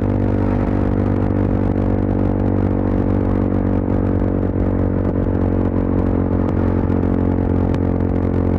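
Yezdi Adventure motorcycle's single-cylinder engine and exhaust running at a steady highway cruise, holding one even pitch with no gear change or throttle blip.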